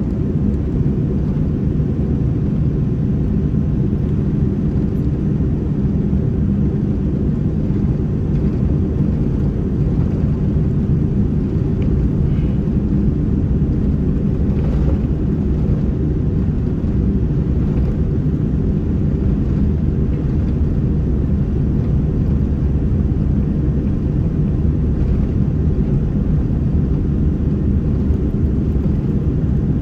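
Boeing 787-9's GEnx turbofan engines at takeoff thrust during the takeoff roll, heard inside the cabin as a loud, steady, deep rumble.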